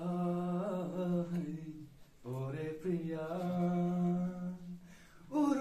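A man singing unaccompanied in a chant-like style: two long, drawn-out phrases held mostly on one pitch, with a short break about two seconds in.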